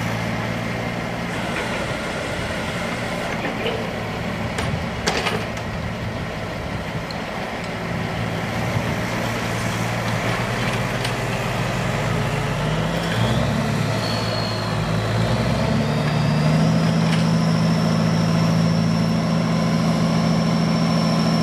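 Truck-mounted crane's engine running steadily, speeding up about 13 seconds in as the crane is worked, with a high whine rising alongside it and then holding. A single sharp knock sounds about five seconds in.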